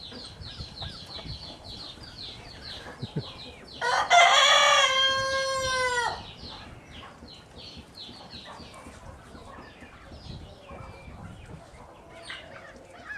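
A rooster crows once, a loud call of about two seconds that falls off in pitch at the end, over steady high chirping of small birds.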